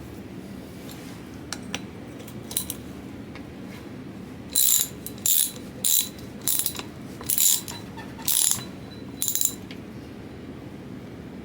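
Socket ratchet wrench clicking in about seven quick strokes, a little over half a second apart, as it runs a nut onto the flywheel of a Kawasaki G4TR engine, with a few lighter clicks before.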